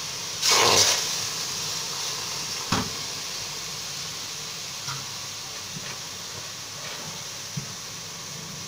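Tripe and lung pieces sizzling in a hot, dry aluminium pot as they give off their own water: a steady hiss that slowly fades. A short, louder rush of hiss comes about half a second in, and a single knock near three seconds.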